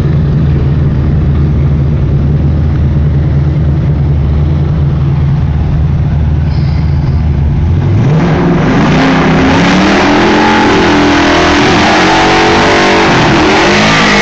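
Ford Shelby GT500's supercharged V8 idling steadily, then about 8 seconds in revving hard in a burnout, its pitch climbing and rising and falling over the loud hiss of spinning rear tyres.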